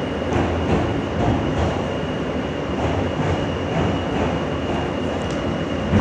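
R160 subway car running on the rails, heard from inside: a steady rumble of wheels on track with faint irregular clicks and a thin, steady high tone.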